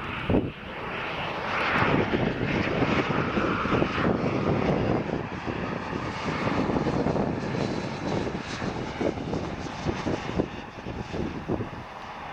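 Jet engines of an American Airlines Airbus A321 running with a steady noise and a faint whine, growing fainter toward the end. Wind buffets the microphone in gusts.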